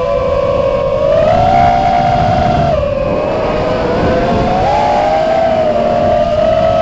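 FPV drone's electric motors and propellers whining, several close pitches gliding up and down together with the throttle. The pitch goes up about a second in, drops at about three seconds and climbs again near five seconds. A low wind rush on the onboard microphone runs underneath.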